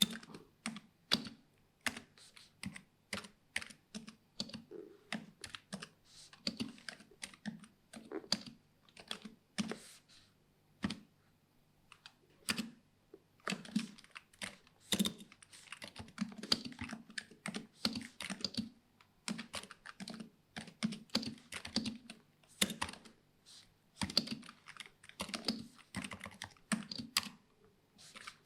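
Typing on a Razer Huntsman V2 keyboard with Linear Optical Red switches and doubleshot PBT keycaps: an irregular run of key clacks, with a short pause about eleven seconds in.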